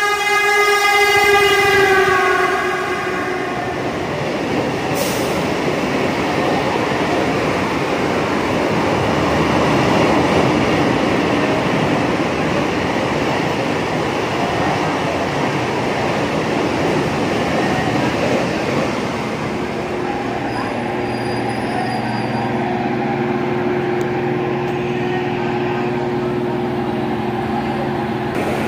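A train horn sounds at the start and dies away within about three seconds, dropping slightly in pitch as it ends. The steady rumble of a train follows. In the last third a steadier hum with a low drone settles in.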